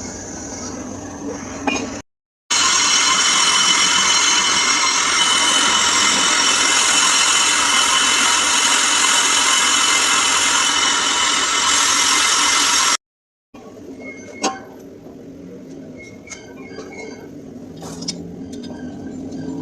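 Car brakes squealing: a loud, steady metallic screech made of many high tones for about ten seconds in the middle, the bad brake-pad noise. Before and after it come quieter stretches with scattered metallic clinks and taps.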